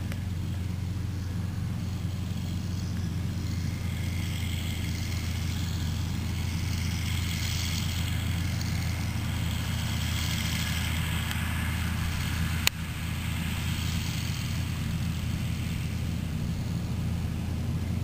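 Combine harvester running steadily at work, a deep engine hum under a shifting hiss of machinery. A single sharp click comes about two-thirds of the way through.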